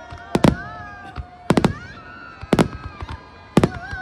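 Fireworks grand finale, aerial shells bursting: about six sharp bangs over four seconds, some in quick pairs, over a continuous bed of sustained tones that bend in pitch.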